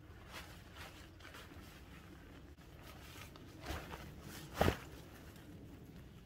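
Emergency tarp rustling and crinkling as it is pulled from its stuff sack and unfolded, with two louder flaps about three and a half and four and a half seconds in as it is shaken out and spread on the ground.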